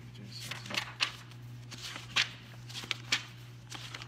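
Pages of a hymn book being flipped: a series of quick, sharp paper rustles, over a steady low hum.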